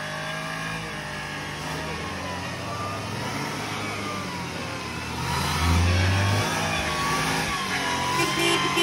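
Car engines revving under load as a car stuck deep in mud is pulled out on a tow rope, the engine drone growing louder about five and a half seconds in.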